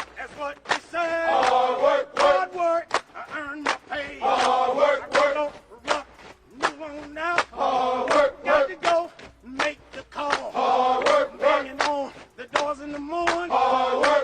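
Background music: male voices chanting over sharp percussive hits.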